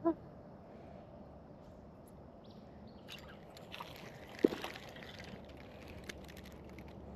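Faint water sloshing and small handling noises aboard a fishing boat, with one sharp knock about four and a half seconds in.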